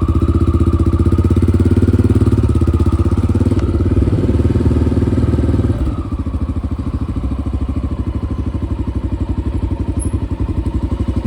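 Carbureted motorcycle engine running with rapid, even firing pulses, louder for about the first six seconds and then settling to a lower, steady idle.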